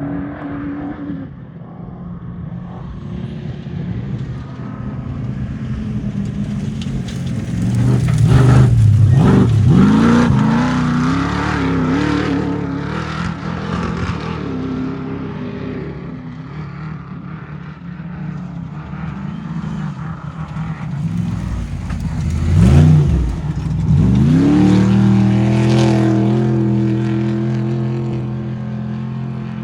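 Off-road race truck engines running loud, with two hard accelerations about eight and twenty-two seconds in, the engine pitch dropping and then climbing sharply each time.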